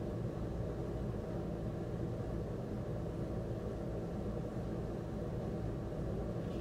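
Steady low background hum of room noise, unchanging, with no distinct events.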